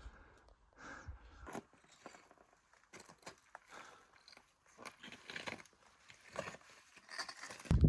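Footsteps crunching and scraping on loose rock and gravel, in faint, irregular scuffs and clicks.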